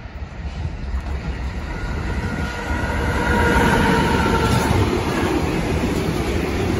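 A Siemens Vectron electric locomotive hauling an intermodal freight train passes close by. The sound rises from a distant rumble to loud as the locomotive goes past about halfway through, with a high whine while it passes. The rumble and clatter of the wagons' wheels follow.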